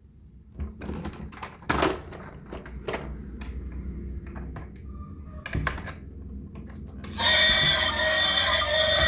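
Irregular knocks and clatters, then loud music with many steady tones starting about seven seconds in.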